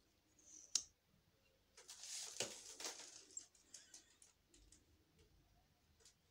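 A mascara tube being opened and handled: one sharp click just under a second in, then about a second and a half of scraping and rustling, followed by a few faint ticks.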